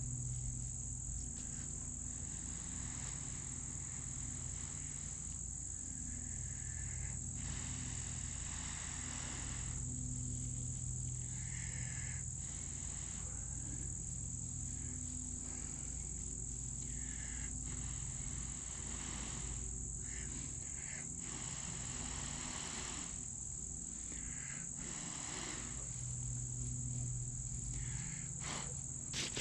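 Long, breathy blows, one every few seconds, into a bird's-nest tinder bundle holding a hand-drill ember, trying to blow it into flame. Under them runs a steady, high-pitched chorus of insects.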